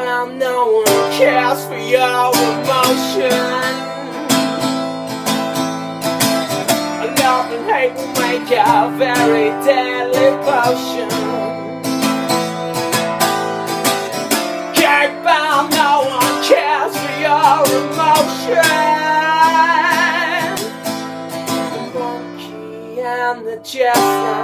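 Acoustic guitar strummed in a steady rhythm, with a man singing over it, holding one long wavering note partway through.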